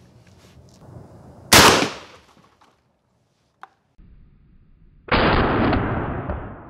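Two gunshots. A sharp crack comes about a second and a half in, then a 12-gauge Mossberg shotgun fires a slug about five seconds in, its blast lingering for about a second and a half before fading.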